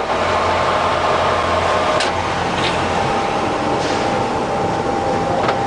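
Colchester Triumph 2000 centre lathe running with its headstock spindle at 350 rpm, a steady gear whine over the running noise. A single click about two seconds in, where the pitch of the whine shifts slightly.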